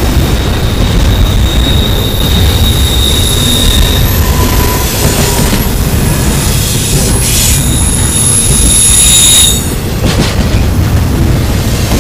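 Double-stack intermodal well cars rolling past close by: a loud, steady rumble of steel wheels on the rails, with high-pitched wheel squeal over the first few seconds and again from about seven and a half to nine and a half seconds in.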